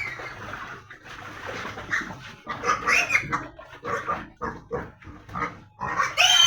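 Young pigs grunting in short, repeated calls, with a loud, high squeal breaking out near the end.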